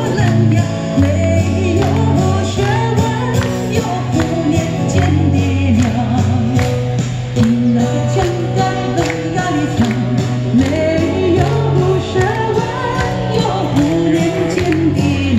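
Live band music through PA speakers: a singer's voice over guitar and a bass line, with a steady beat and audience clapping along.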